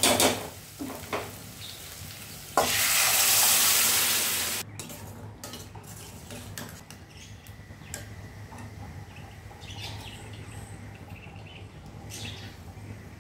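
Chopped onions frying in oil with tempering spices, a spoon stirring and clinking against the pan. About two and a half seconds in, a loud sizzling hiss lasts about two seconds and cuts off suddenly.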